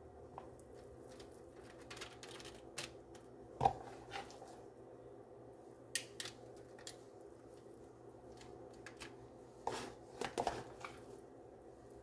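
Hands spreading shredded chicken in a foil-lined baking pan: scattered soft rustles and crinkles of aluminium foil with a few light knocks, the sharpest a little over three and a half seconds in and a short cluster near the end, over a faint steady hum.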